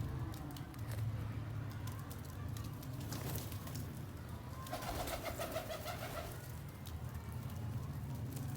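Domestic pigeons cooing, with a louder pulsing call around the middle.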